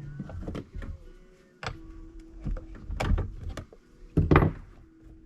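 Clicks and knocks of a chainsaw being taken apart by hand, a part being taken off. The loudest clatter comes about four seconds in.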